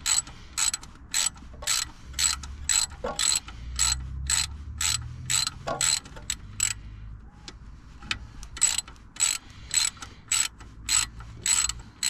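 Socket ratchet clicking steadily, about two to three clicks a second with a short pause about seven seconds in, as it works a stiff 12 mm bolt loose a little at a time.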